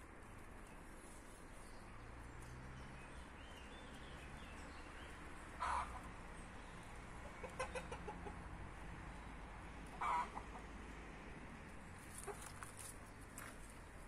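Chickens clucking: two short loud clucks, about six and ten seconds in, with a few fainter clucks between them.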